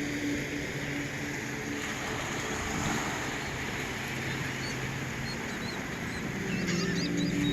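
Wind and ocean surf on a beach, a steady rushing noise with a soft low drone underneath. A few short high chirps come near the end.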